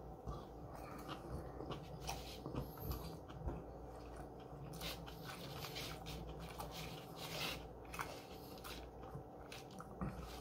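A person chewing a mouthful of sushi up close, with small irregular clicks throughout.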